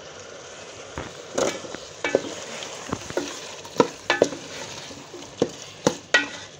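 Potatoes and chicken frying in masala in a metal pot, a steady sizzle. From about a second in, a spoon stirring the pot knocks and scrapes against it, roughly twice a second.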